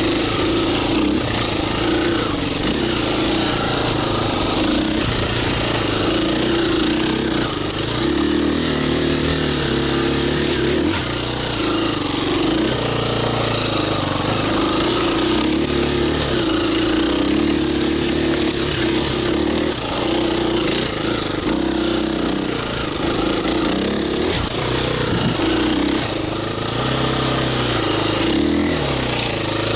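KTM 350 EXC-F single-cylinder four-stroke dirt bike engine running under way, its pitch rising and falling with the throttle.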